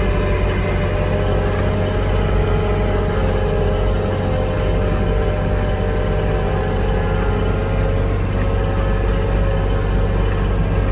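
John Deere 1025R sub-compact tractor's three-cylinder diesel engine running steadily while plowing snow.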